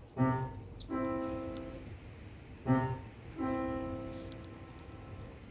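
Piano playing a repeating phrase: a short chord, then a longer chord left to ring and die away, the pair coming round about every two and a half seconds.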